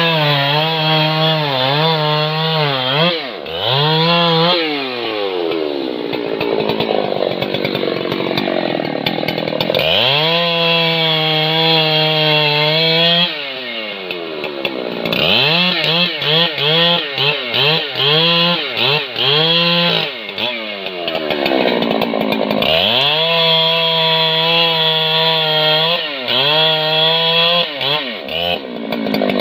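Two-stroke chainsaw cutting into a rain tree (trembesi) trunk. It holds a steady, loaded pitch for several seconds at a time, and between cuts the engine revs up and drops back again and again.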